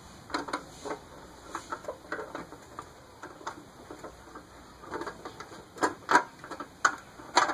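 A metal clamp being loosened and worked off an aluminum snow shovel after brazing: irregular metallic clicks and knocks, coming thicker and louder near the end.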